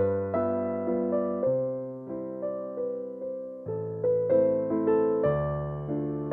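Background piano music: single notes and chords struck one after another, each fading before the next.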